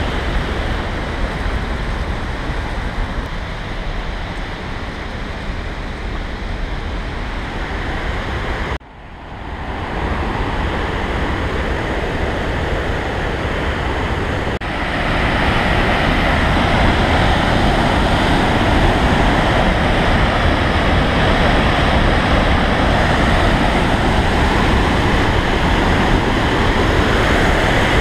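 Steady rushing roar of a mountain torrent and its waterfalls. It dips sharply for a moment about nine seconds in and is louder from about fifteen seconds on.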